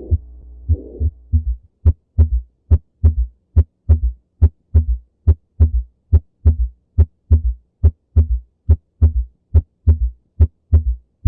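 Heart sounds demonstrating a holosystolic murmur with an S3 heart sound. For the first second and a half, a murmur fills the gaps between the beats over a low hum. Then the murmur and hum drop out, leaving clear paired heartbeats at about 70 a minute.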